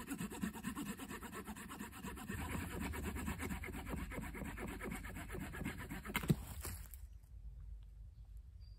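Hand saw cutting through wood in quick, steady back-and-forth strokes for about seven seconds, stopping after a sharp knock near the end.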